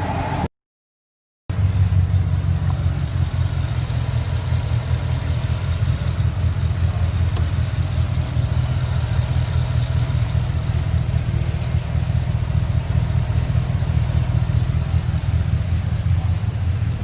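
Ford F-150 5.0 L V8 running at idle with a steady low, fast-pulsing rumble and rattle from the exhaust, the sound of the F-150's common exhaust heat shield rattle. The clip cuts in about a second and a half in, after a brief higher-pitched engine sound.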